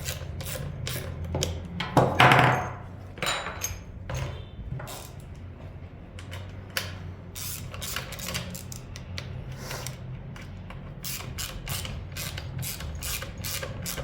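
Bolts holding a brush cutter's engine to its drive shaft being tightened with a hand tool: a run of short metallic clicks and ticks, a louder scraping clatter about two seconds in, and quicker clicking near the end.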